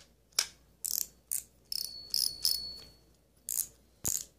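Daiwa Crossfire 3000 spinning reel worked by hand: a string of sharp mechanical clicks and short rasps, with a thin, high, ringing tone lasting about a second and a half near the middle.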